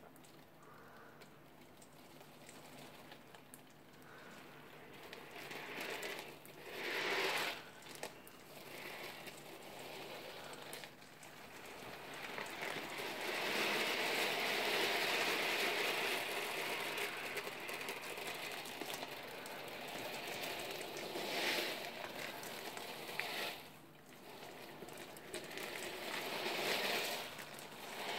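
Nearly 3000 steel ball bearings of 8 mm rolling and clattering against each other and the board's frame, a dense rattle that swells and fades several times and is loudest for several seconds in the middle.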